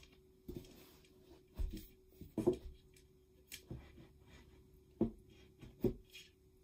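White laminated particleboard flat-pack furniture panels being handled and set against each other, giving an irregular series of light knocks and thumps, the loudest about two and a half seconds in.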